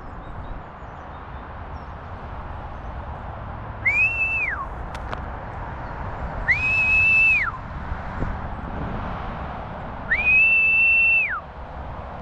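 A whistle blown three times, each blast a steady high note that swoops up at the start and drops off at the end, the last two longer than the first; this is a falconer's call to the hawk. A faint click comes between the first and second blasts, over low outdoor rumble.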